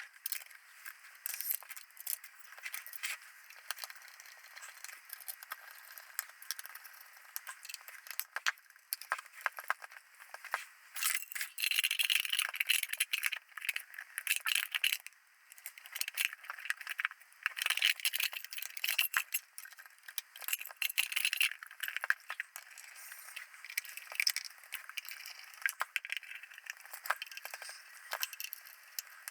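Irregular clicks, clinks, rattles and scrapes of small metal parts, screws and tools being handled while an electronic camera unit is put back together. The sound is thin, with no low end.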